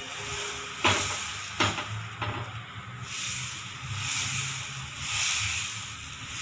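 Millet dosa batter sizzling on a hot griddle, the hiss swelling and easing as it is spread thin. Three sharp clicks in the first few seconds.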